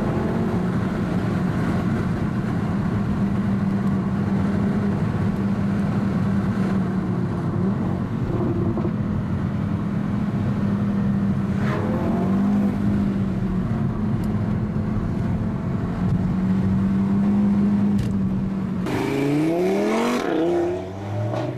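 Audi RS3's turbocharged 2.5-litre five-cylinder engine running at a steady pitch on the move, with a brief dip and rise in pitch about halfway. Near the end it revs up hard, the pitch climbing in several quick rising sweeps.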